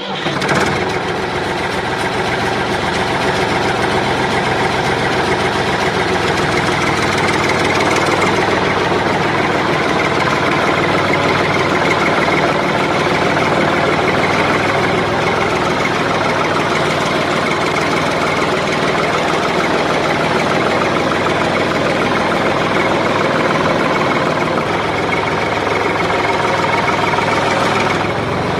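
Engine of a home-built mini tractor running steadily, the same loud, even note throughout.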